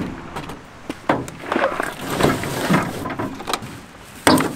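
Camping gear being loaded into a lawn-tractor utility cart: a string of irregular knocks and bumps with rustling of plastic bags, and a loud thump near the end.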